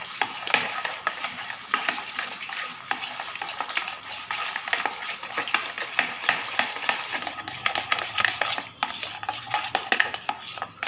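A spoon stirs and scrapes a thick yogurt-and-spice mix in a plastic bowl, making a continuous run of small wet clicks and scrapes.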